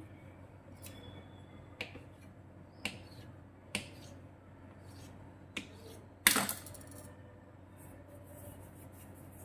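Kitchen knife tapping sharply on a granite countertop as it chops through a log of dough, a few separate taps, then a louder clatter about six seconds in as the knife is laid down on the stone.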